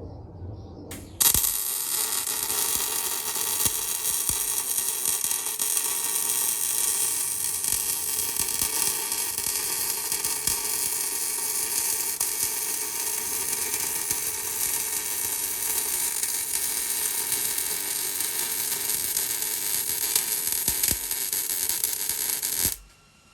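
Millermatic 190 MIG welder laying a long continuous weld bead on steel: a steady crackling sizzle of the arc that starts abruptly about a second in and cuts off suddenly near the end.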